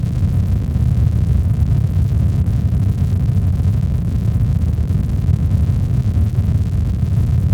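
Steady, unbroken sleep-aid noise, deep and rumbling, with most of its energy in the bass and little hiss: a low, brown-noise-like variation of white noise.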